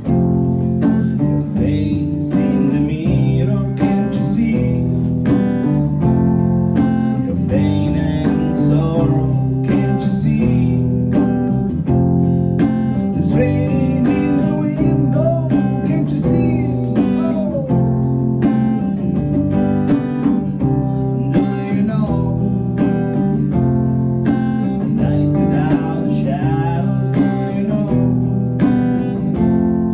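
Live band playing a song: strummed guitar over a steady drum beat.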